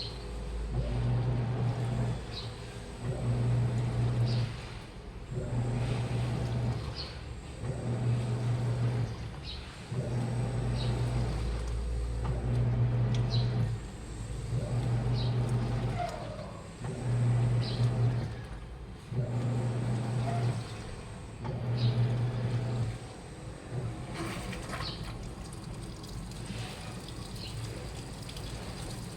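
Washing machine running its wash cycle: the motor turns the drum in short pulses about every second and a half, each with a low hum and the washing sloshing. The pulses stop about 23 seconds in, leaving a quieter steady running sound.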